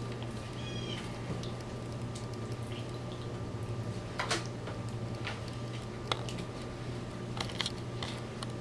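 Hands squeezing soft roasted tomatoes and pulling off their skins in a pan of juice: scattered wet squelches, small splats and ticks, the loudest about halfway through, over a steady low hum.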